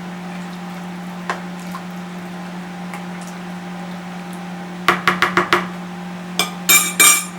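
Spoon knocking against a microwave-safe bowl while stirring: a quick run of about five clinks, then a few louder, ringing taps near the end, over a steady low hum.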